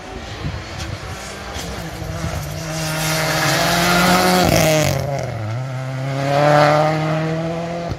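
Rally car at full throttle on an asphalt sprint stage. The engine climbs steadily in pitch as the car comes in and passes close by about four and a half seconds in, with a rush of tyre and wind noise. Its pitch then drops and climbs again as it pulls away.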